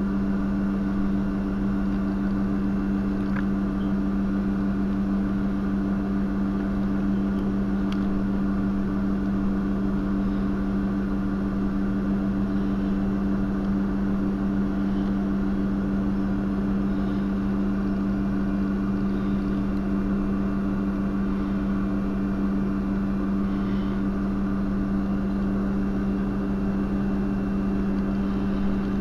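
A steady, low mechanical hum that does not change.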